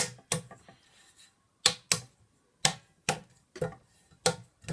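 A tool scraping and knocking inside a vacuum cleaner's motor housing to clear out dirt and rust: about ten short, sharp metallic strokes, unevenly spaced.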